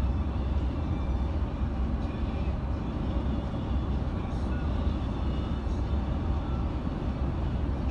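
Steady low rumble of a Mercedes-Benz Travego coach's diesel engine and tyre noise heard inside the cabin while cruising at highway speed.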